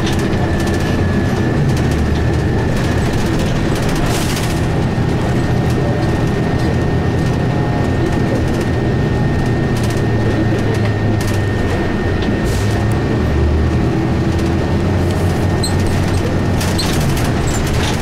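Interior of a 2002 Blue Bird transit bus under way: its Cummins ISC inline-six diesel and Allison B400R automatic transmission running steadily, with a thin high whine through most of it and scattered rattles from the cabin.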